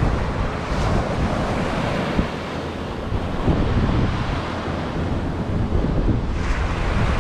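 Strong wind buffeting the microphone in uneven gusts, over the steady wash of breaking surf.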